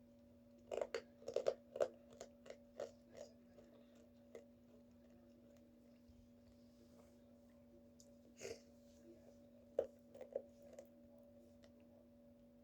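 Slime being squeezed and pulled by hand, making a quick run of sticky pops and clicks in the first few seconds and a few more later, over a steady electrical hum.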